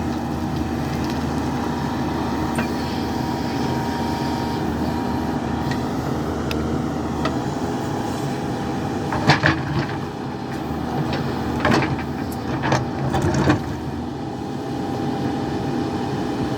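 JCB 3DX backhoe loader's diesel engine running steadily. Several sharp cracking knocks come in a cluster a little past halfway through.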